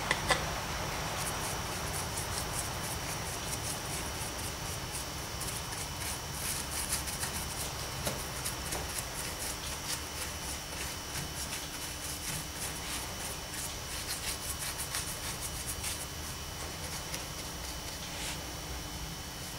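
Bristle paintbrush scrubbing and dabbing paint into plaster rock castings: a long run of quick, dry, scratchy strokes, with one sharp knock just after the start.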